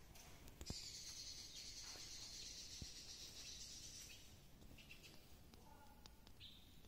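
Near silence: a faint, high insect buzz for about three seconds, starting just after a soft click about a second in, then a few faint bird chirps near the end.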